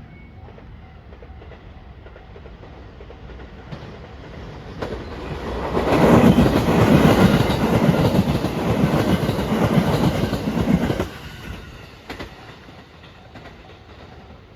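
A train passing at speed over a level crossing, its wheels clacking over the rail joints. It builds from about four seconds in, is loudest for about five seconds, and drops off sharply as the last car goes by.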